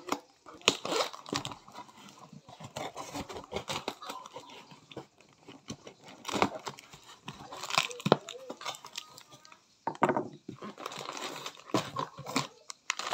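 Scissors cutting through packing tape on a cardboard box, with tape tearing and cardboard scraping and crinkling as the box flaps are pulled open.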